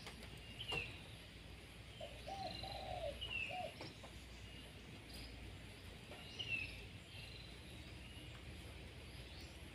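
Birds chirping: short, high, falling chirps repeated every second or so, with a few lower notes about two to three and a half seconds in.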